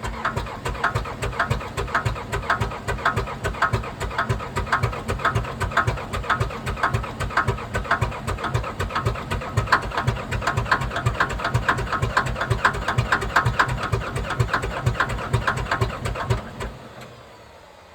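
Komatsu D57S1 track loader's diesel engine cranking on the starter in a cold start without firing, an even chugging about four times a second that stops about 17 seconds in, followed by a faint falling whine. It is a hard cold start that the owner suspects is down to failed glow plugs.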